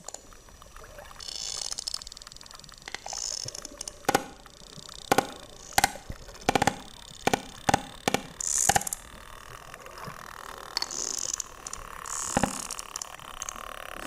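Sperm whales clicking underwater: about seven sharp clicks, mostly bunched in the middle, roughly half a second to a second apart. Under them runs a water noise with bursts of high hissing.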